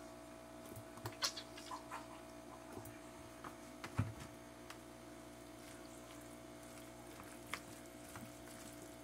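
Faint squishing clicks from a squeeze bottle of buttermilk ranch dressing being squirted onto a pasta salad, with a single thump about four seconds in. Near the end a spoon starts stirring the salad, over a steady low hum.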